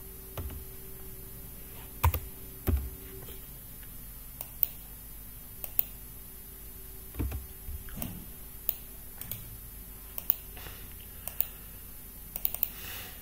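Computer keyboard and mouse clicks, sparse and irregular, with a few louder key knocks and a quick run of keystrokes near the end.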